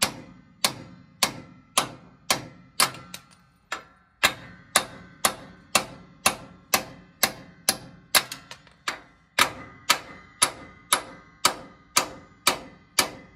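Hammer blows driving steel wheel studs out of the rear hub of a Toyota 105-series Land Cruiser: sharp metal-on-metal strikes about two a second, with a brief pause about four seconds in.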